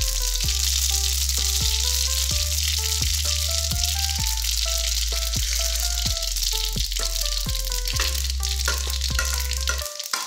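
Mustard seeds sizzling in hot oil in a steel kadhai, a steady hiss dotted with many small pops as the seeds splutter. Background music with a stepping melody and a steady bass plays over it; the bass drops out near the end.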